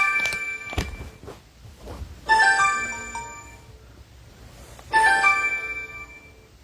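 Mobile phone ringtone: the same short chiming phrase of several ringing notes, played three times about two and a half seconds apart.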